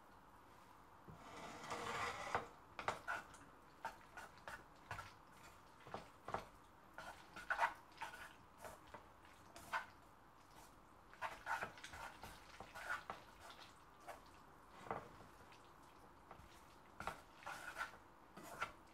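A liquid, double cream, is poured into a saucepan of cooked linguine about a second in. Wooden chopsticks then mix the pasta in the cream sauce, giving irregular wet squishes and light taps against the pan.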